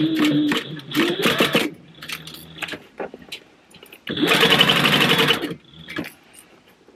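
Industrial sewing machine stitching through a thick stack of purse layers in two short runs, backstitching at the start of a seam. The first run lasts under two seconds; a louder second run starts about four seconds in and lasts about a second and a half.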